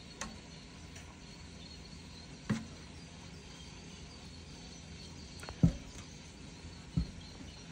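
Wire whisk working a thick mix of peanut butter and water in a stainless steel bowl, with four separate knocks of the whisk against the bowl, the loudest a little past halfway.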